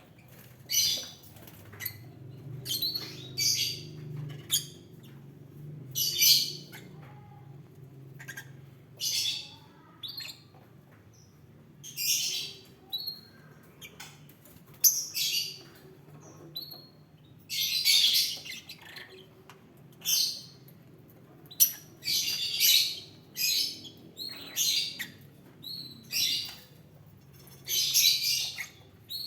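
Lovebirds chirping in short, high-pitched bursts, one every second or so at irregular intervals, over a faint steady low hum.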